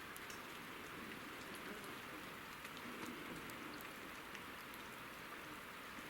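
Light rain: a steady faint hiss with scattered small drop ticks.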